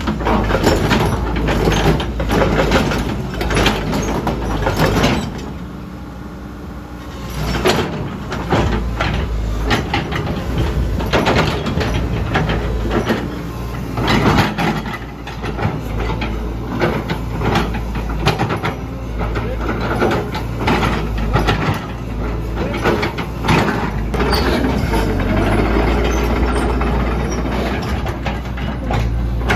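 Caterpillar 312C excavator's diesel engine running under a steady low rumble, with frequent clanks, knocks and rattles from the machine working.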